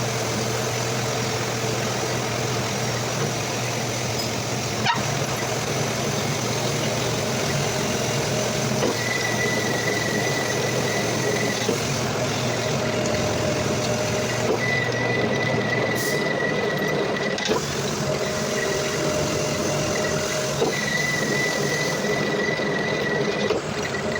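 Metal lathe running steadily while turning a metal part, with a high whine that comes and goes in stretches of a few seconds and a couple of sharp clicks.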